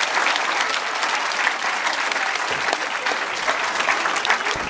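Audience of schoolchildren applauding, many hands clapping steadily.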